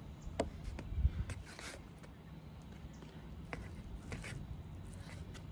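Knife and fork cutting into a cooked steak: scattered light clicks of the utensils, with two short scrapes, about one and a half and four seconds in.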